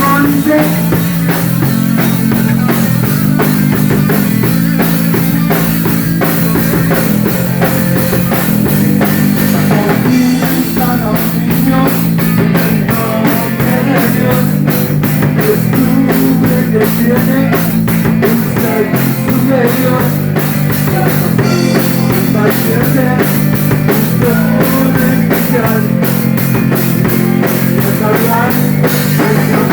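Rock and roll band playing an instrumental passage: a busy drum-kit beat, guitar and a repeating bass line.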